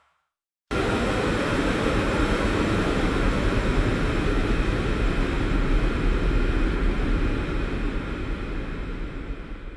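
City traffic ambience: a dense, steady rumble of vehicles, cutting in suddenly just under a second in and fading near the end.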